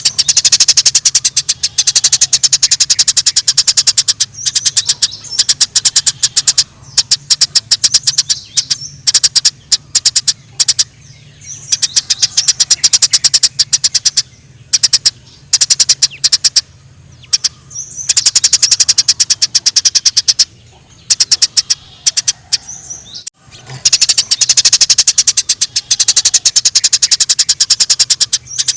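Eurasian tree sparrows chattering in fast, dense trains of sharp chirps, in bouts broken by short pauses: the agitated calls of sparrows fighting.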